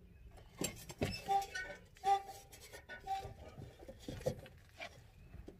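Hand tools and metal mower-blade parts clinking and knocking, with a few short ringing taps and scattered clicks while a blade bolt is worked on.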